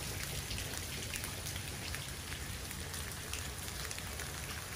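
Steady rain falling, with scattered faint raindrop ticks.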